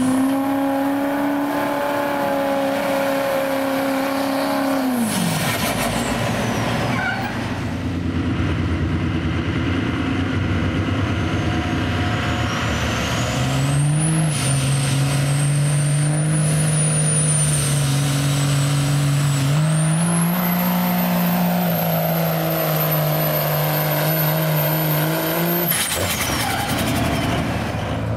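Diesel pickup trucks pulling a weight-transfer sled at full throttle, in two separate pulls. The first engine holds a steady high speed and then drops off about five seconds in. The second runs with a high turbo whistle that rises and holds, steps up once, and cuts off near the end.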